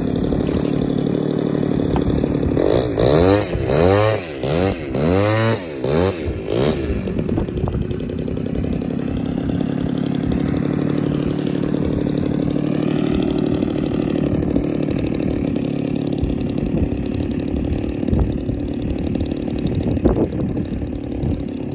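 Large-scale RC aerobatic plane's engine idling on the ground with its propeller turning. A few seconds in it is blipped up and down about four times in quick succession, then settles back to a steady idle.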